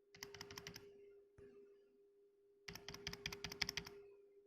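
Typing on an HP 350 Compact Multi-Device Bluetooth keyboard: a quick run of key clicks in the first second, then a longer run of about a second and a half near the middle, over a faint steady hum.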